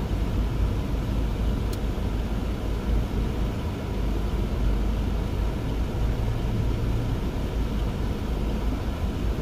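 Steady low rumble inside a car's cabin, the running of the car heard from within.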